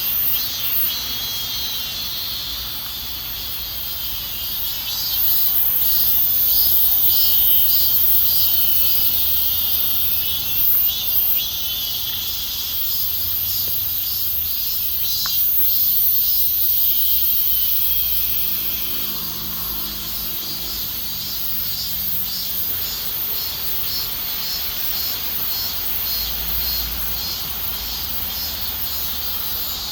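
Cicadas singing in chorus: a steady, high-pitched buzz that pulses in a regular rhythm, with a still higher hiss above it.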